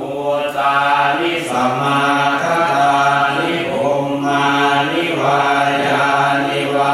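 Buddhist chanting of Pali verses, voices intoning syllables on a low, steady pitch.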